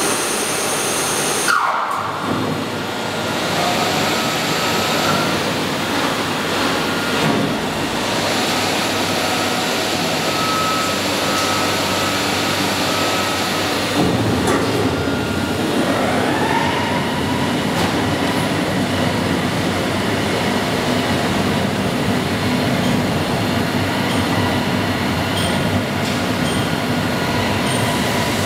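M Pumps T ECO MAG M magnetic-drive centrifugal pump and its electric motor running under test, circulating hot thermal oil: a steady, loud mechanical hum and rush. A couple of faint whistling tones glide in pitch.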